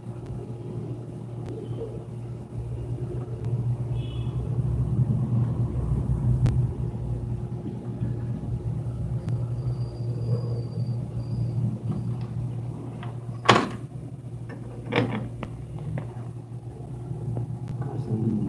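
Steady low hum with some rumble, and a sharp click about thirteen and a half seconds in, followed by a softer one a second and a half later.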